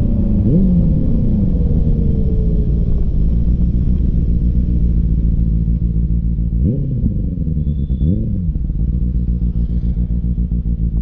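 Benelli TNT 600i's in-line four-cylinder engine with an aftermarket exhaust, ridden on the road, running with a steady note. The revs rise sharply and fall back three times: once about half a second in, and twice in quick succession about seven and eight seconds in.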